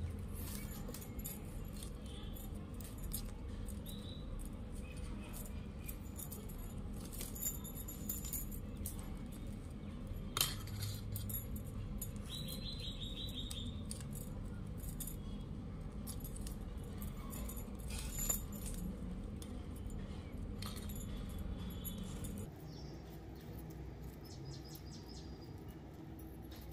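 Stiff plastic craft wire strands clicking and rustling against each other as hands knot them, with light metallic jingles from bangles now and then, over a steady low hum.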